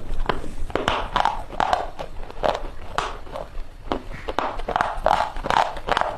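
Chalk chips crunching and snapping: a quick run of irregular, crisp cracks and crunches.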